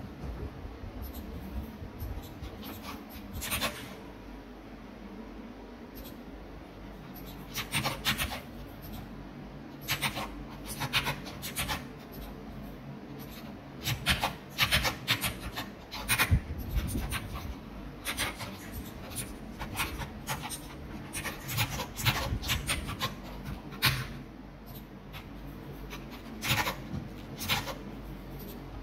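Natural leather being rubbed and polished by hand: short bursts of scratchy rubbing strokes with pauses between them, over a low steady hum.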